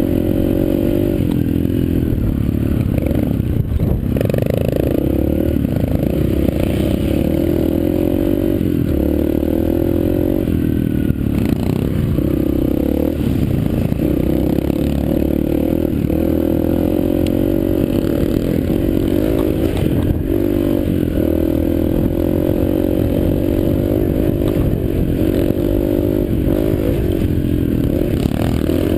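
Yamaha TT-R125's single-cylinder four-stroke engine running while being ridden, its pitch rising and falling as the throttle opens and closes. A few knocks and rattles come through from the bike over the rough trail.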